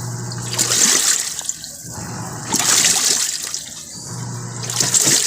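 Electrolux top-load automatic washing machine in its wash cycle, the agitator churning the water in surges about every two seconds with a low hum between them. The machine is washing normally again after repair.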